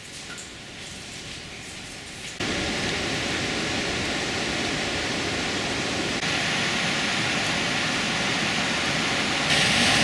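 Steady rush of the Larraun river at the Ixkier waterfall. It jumps louder in sudden steps, at about two and a half seconds, about six seconds and just before the end, and is loudest at the end.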